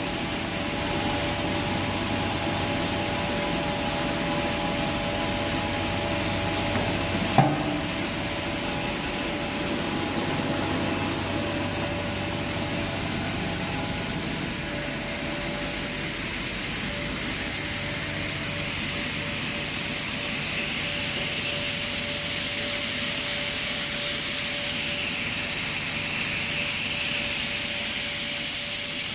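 Plastic film granulator running steadily, its motor hum and the grinding of the film trim as one even mechanical noise. A single sharp knock comes about seven seconds in.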